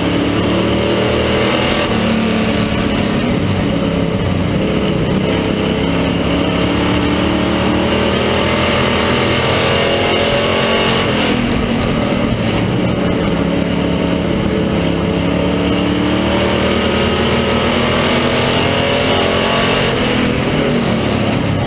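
Stock car's engine running hard from inside the cockpit, its pitch climbing and falling as the car accelerates on the straights and backs off into the turns. The driver describes the engine as sick and going south during this race.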